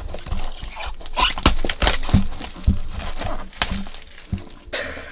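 Plastic shrink wrap being torn and crumpled off a sealed trading card box: irregular crinkling and crackling with sharp snaps now and then.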